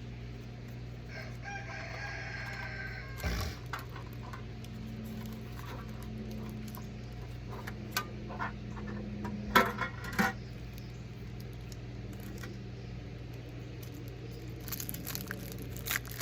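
Trading-card foil packs and cards being handled: scattered short clicks and crinkles, with a steady low hum underneath. A faint drawn-out animal call comes about a second in.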